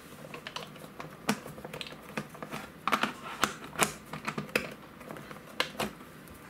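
Irregular sharp plastic clicks and taps from the plastic top cover of an Antec MX-1 hard drive enclosure being handled and pressed onto the case.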